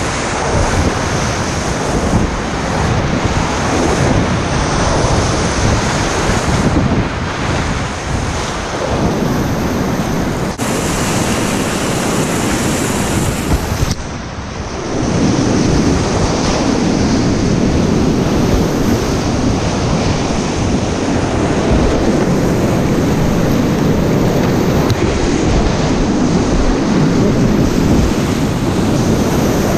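Whitewater rapids rushing and churning close around a kayak running them, loud and steady. About halfway through the sound goes briefly quieter and duller as water washes over the camera.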